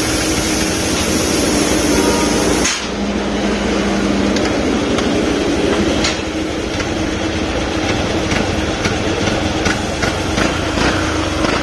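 Fuel-injected scooter engine running on a test after a service, held at higher revs for the first few seconds, then dropping abruptly to a steady idle. A series of sharp knocks sounds over it in the second half.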